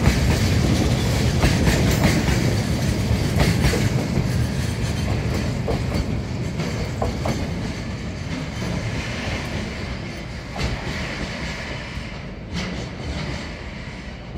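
Taki oil tank wagons of a freight train rolling past, their wheels clicking over the rail joints in a clickety-clack with a heavy rumble underneath. The sound fades steadily as the tail wagon passes and the train moves away.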